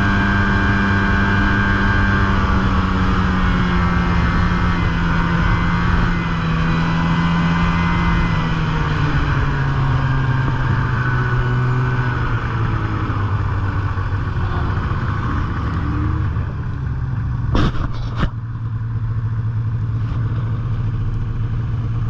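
Snowmobile engine running steadily while riding, its pitch dropping as it slows about nine seconds in. Two sharp knocks about half a second apart near the end.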